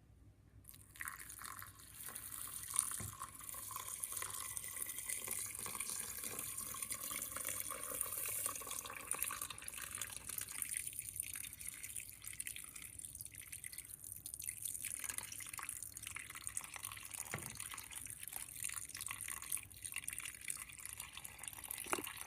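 Water running from a tap into a pot, a steady hiss that starts about a second in and stops just before the end.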